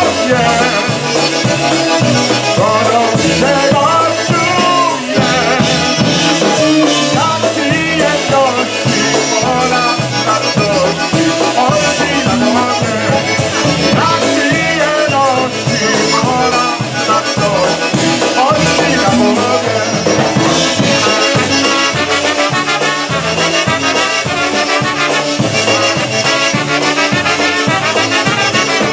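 Polka band playing live: a man sings into a microphone over a steady oom-pah beat with drums. In the last part, trumpets and saxophone play together.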